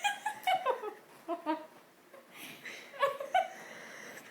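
A person chuckling in short bursts, several in a row with brief pauses between them.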